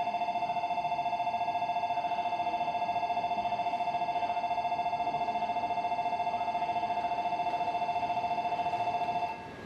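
Electronic departure bell on a Shinkansen platform ringing as a steady, rapid trill on two close pitches. It cuts off suddenly about nine seconds in.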